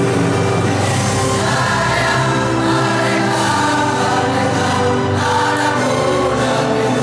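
Male student choir singing together, holding long notes that change pitch every second or so.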